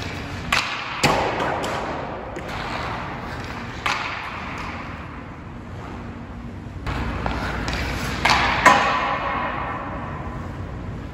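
Pucks being shot with an STX Stallion HPR 2 composite hockey stick: a handful of sharp cracks of stick on puck and puck striking the boards or net, each ringing out in the big empty rink, the loudest near the end. Skate blades scrape the ice between shots.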